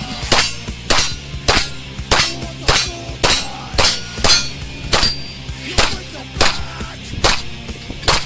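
Heavy metal music with a hard, even beat, a sharp strike about every 0.6 s over a steady bass.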